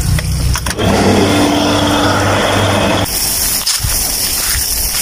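Electric pump motor of a fertiliser tank switched on. It starts up about a second in and runs with a steady hum and rush as it pumps liquid fertiliser through the pipes. About three seconds in, it gives way to a steady hiss.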